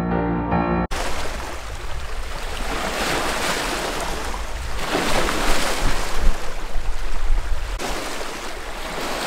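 Small lake waves washing in and breaking over shoreline rocks, swelling and falling several times, with a steady rumble of wind on the microphone. Soft piano music cuts off suddenly about a second in.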